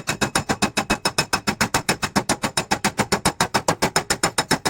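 Rapid, even metallic tapping, about nine strikes a second, each with a short ringing tone; it cuts off suddenly near the end.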